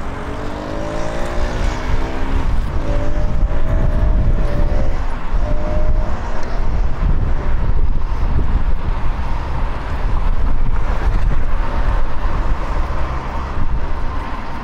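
Street traffic heard from a moving bicycle: a steady low rumble, with a passing motor vehicle's engine hum bending in pitch during the first six seconds.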